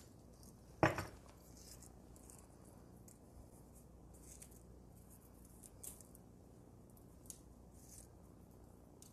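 Hands working over a parchment-lined baking tray of raw cookies: one sharp knock about a second in, then a few faint, light clicks and rustles as chocolate chips are pressed onto the cookies.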